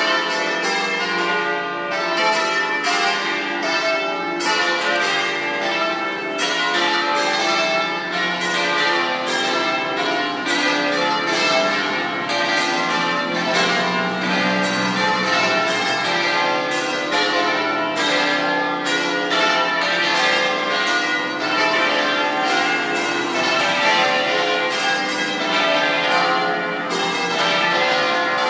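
Full peal of a seven-bell church concert with its largest bell on C (Do 3), all bells ringing together. The three largest swing in synchrony in the Treviso manner and the four smaller ones swing freely, electrically driven, giving a continuous dense wash of overlapping bell strikes.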